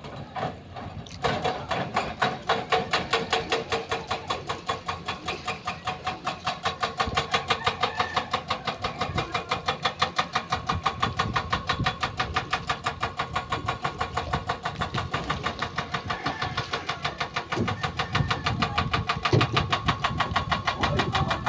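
An engine starts about a second in and runs with a steady pulsing beat, about five beats a second.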